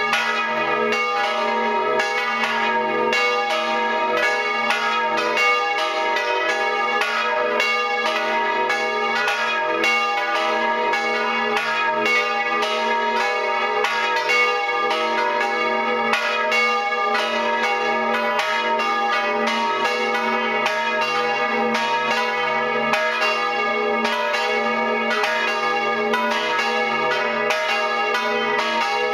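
Full peal of three swinging church bells tuned to D♯, G♯ and B, heard close up from inside the belfry. The clappers strike in quick, irregular succession, so the bells' tones ring over one another without a break.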